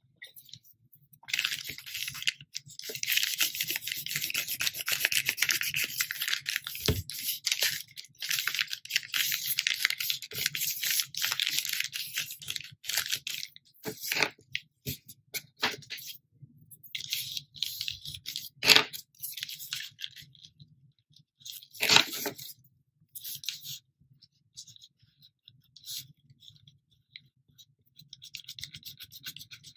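Wax crayon colouring on a brown paper bag: dense, scratchy rubbing strokes for about the first dozen seconds, then scattered strokes and a few sharp clicks, with faint scratching again near the end.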